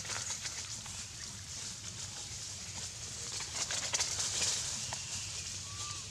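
Dry leaf litter crackling and rustling under a monkey's footsteps, in many short irregular crackles, over a steady high hiss of forest background. A short bird whistle comes near the end.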